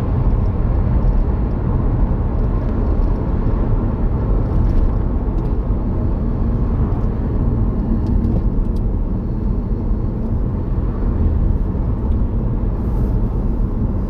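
Car driving along a road, heard from inside the cabin: a steady, loud low rumble of engine and tyre noise.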